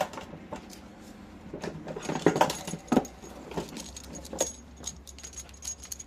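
Irregular metallic clinks and knocks from a rusted ATV brake caliper being worked by hand while trying to free its seized pistons. The sharpest knocks bunch together about two to three seconds in.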